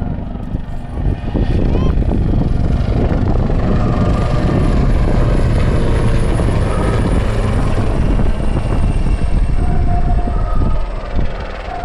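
AgustaWestland AW159 Wildcat helicopter flying a display manoeuvre: the twin-turboshaft rotor noise swells about a second in, holds, and eases off near the end. A faint high turbine whine rises and then falls.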